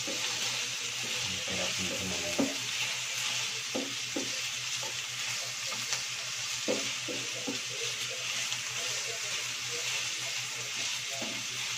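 Pork cubes and onion sizzling in a little oil in a nonstick frying pan, with a steady frying hiss. A spatula and utensil scrape and tap against the pan now and then as the pieces are stirred and turned.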